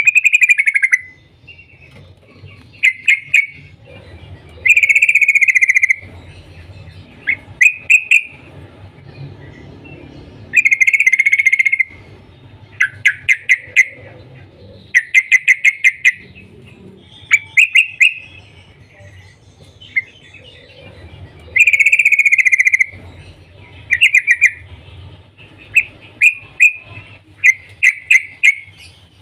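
Yellow-vented bulbul (trucuk) in full song: loud, bubbling chirped phrases about a second long alternate with quick runs of short, sharp notes, coming every second or two.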